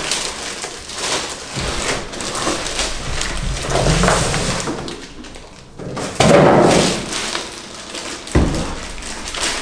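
Crinkling and rustling of the plastic bag around a Cisco 2960-XR switch, with the cardboard box scraping, as the switch is lifted out of the box and turned over. A thump near the end as the switch is set down on a table.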